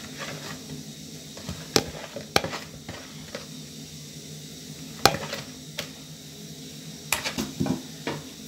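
A spoon stirring a thick millet and cassava flour paste in a bowl, with scattered sharp knocks and clinks as it strikes the bowl's side, in small clusters about two, five and seven seconds in.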